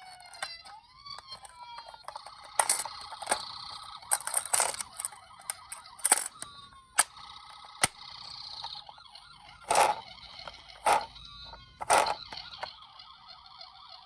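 Toy emergency-vehicle siren, wailing up and down for the first two seconds, then switching to a two-tone hi-lo ambulance pattern. Sharp clacks break in about eight times and are the loudest sounds.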